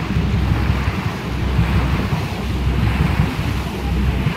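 Wind buffeting the microphone with a heavy, uneven low rumble, over a steady rush of water, on board a moving passenger boat on a lake.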